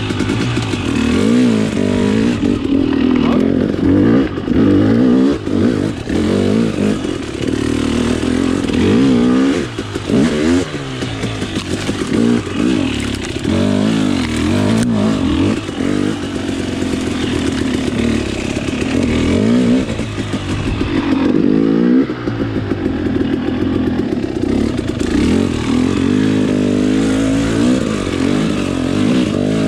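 Off-road dirt bike engine running with constant throttle changes, its pitch rising and falling every second or two.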